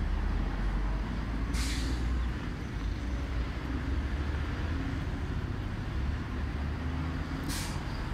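Steady low rumble of road traffic and wind buffeting the microphone, with two short sharp hisses, one about a second and a half in and one near the end.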